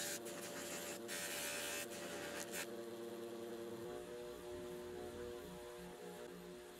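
Bench buffer's electric motor humming steadily with the buffing wheel spinning, as a small metal part is pressed against the wheel. Bursts of hiss come with the contact: briefly at the start, for most of a second about a second in, and briefly again about two and a half seconds in.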